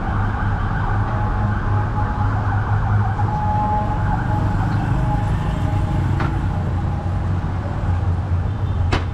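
City street traffic: a steady low engine drone from passing and idling vehicles, with a brief steady tone about three to four seconds in and a sharp click near the end.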